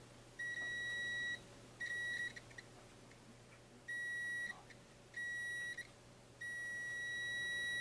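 Digital multimeter's continuity beeper sounding a steady high-pitched beep, four short beeps of about half a second to a second each, then one long unbroken beep near the end, as the probes touch a freshly resoldered relay pin. The beep signals continuity: the cold solder joint is now repaired.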